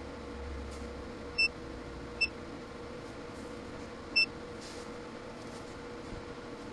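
Extech MN16A digital multimeter giving three short, high beeps as its buttons are pressed and its function changed, over a steady faint hum. The beeps come in the check of whether the meter still works after the surge test.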